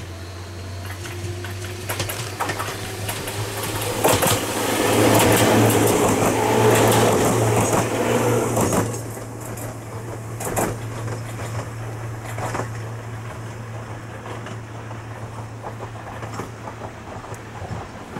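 Ohmi Railway 901F electric train passing, its wheels clacking over the rail joints. It is loudest from about four to nine seconds in, then drops away with a few more fading clacks as it moves off, over a steady low hum.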